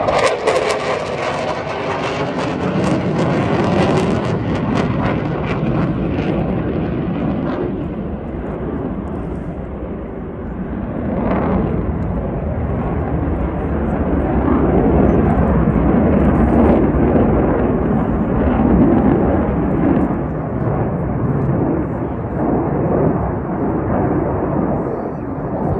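Two jet fighters flying overhead in formation: a continuous jet engine roar. It is loudest at the start, with a falling sweep as they pass, eases off around ten seconds in, and swells again a few seconds later.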